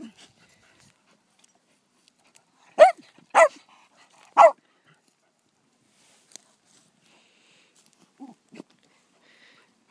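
A small terrier barking three short, sharp times about three to four and a half seconds in, followed by two much fainter short sounds a little after eight seconds.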